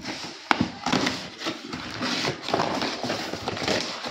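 Corrugated cardboard parcel being ripped open by hand: continuous tearing and crackling of cardboard and packing, with a few sharp snaps.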